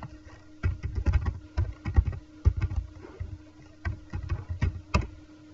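Typing on a computer keyboard: a run of uneven key clicks with dull thumps, one sharper click near the end, over a faint steady hum.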